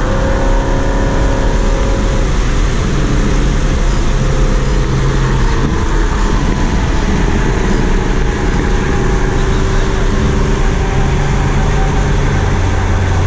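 Engine and road noise heard inside the cabin of a naturally aspirated car at highway speed, with a steady drone whose pitch shifts a couple of times.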